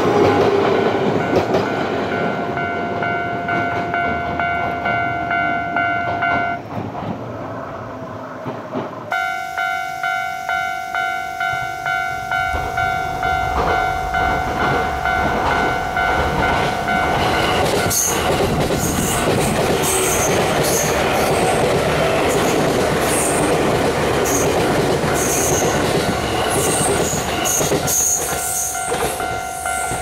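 Japanese level-crossing warning bell ringing in its regular repeating pattern, over the rumble and rail-joint clatter of trains: an Izu Kyuko train clearing the crossing at the start, and after a cut an approaching train rumbling louder through the second half.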